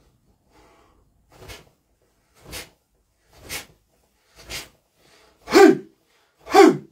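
A man's sharp, forceful exhalations, one with each kung fu strike, about one a second and getting louder. The last two are short voiced shouts falling in pitch: a spirit shout released with the strike.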